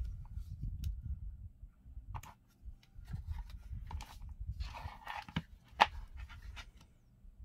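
Hobby knife and hands working packing tape wrapped around a lipo battery pack: scratchy crackling of the tape with scattered clicks, a longer scraping stretch past the middle and one sharp click about six seconds in, over a low rumble.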